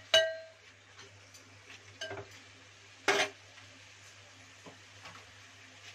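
A metal spoon striking an aluminium pressure cooker: a ringing clink just after the start, another knock about two seconds in, and a louder one about three seconds in.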